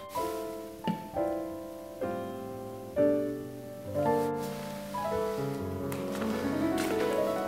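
Background solo piano music: single notes and chords struck about once a second, then a climbing run of notes near the end.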